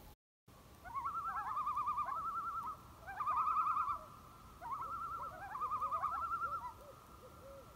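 Common loons giving tremolo calls: fast, wavering, laughing calls in three bouts, overlapping one another, with lower calls gliding up and down beneath them.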